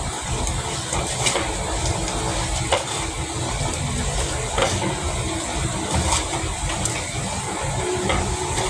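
Hands squeezing and kneading chopped, salted banana heart in a plastic basin, with scattered short wet squelches and clicks as the juice is pressed out. A steady low rumble runs underneath.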